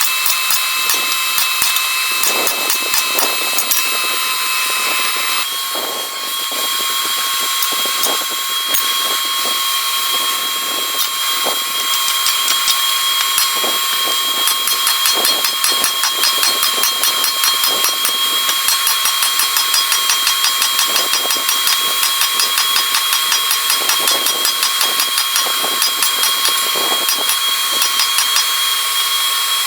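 Power grinder grinding the steel of a re-forged mini sledgehammer head: a steady whine over a harsh rasp, shifting in pitch about five seconds in.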